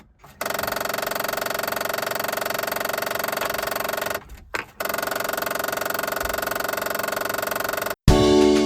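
Failing CD player in a 2005–2009 Ford Mustang's factory stereo making rapid, even, continuous clicking, with a brief break about four seconds in: the clicking of a CD player gone bad, which can run even with the key off. Music starts near the end.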